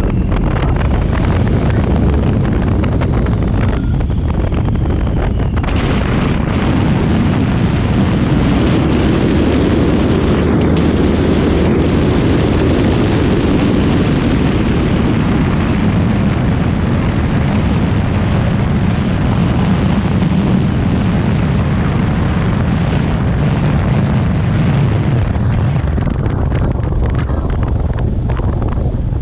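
Light aircraft's engine and propeller running with rushing air, heard on board during aerobatics, loud and steady. The rush of air grows sharply louder about six seconds in and eases back near the end.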